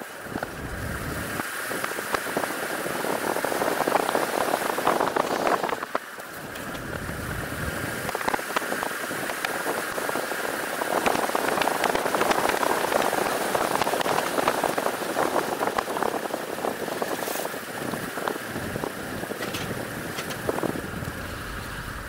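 Wind buffeting the microphone of a camera moving along a paved path, with rolling road noise and crackles. The rush swells and fades, drops briefly about six seconds in, and a faint steady high whine runs under it.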